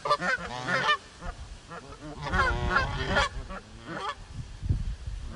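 Geese honking in repeated bouts of calls: a burst at the start, a longer run of honks in the middle and a short call about four seconds in. A low rumble sounds near the end.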